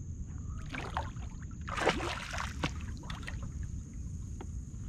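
A hooked fish thrashing and splashing at the surface beside a kayak, a few short splashes with the biggest about two seconds in, over a steady low rumble of wind on the microphone.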